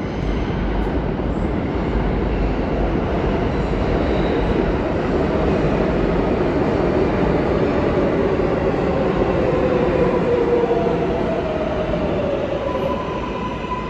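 New York City subway train on the J/Z line coming into an underground station, with a loud steady rumble of wheels on rail. A whine from the train's motors slides slowly down in pitch as it brakes, and a steady high tone sets in near the end.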